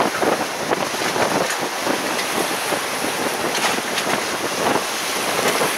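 Sea surf washing over rocks, with wind buffeting the microphone in irregular gusts.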